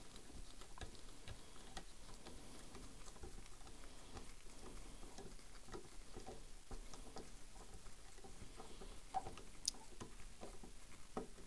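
Faint, scattered small clicks and ticks of metal parts and screws being handled and turned back into a Henry H001 .22 lever-action rifle by hand, with a couple of sharper clicks near the end.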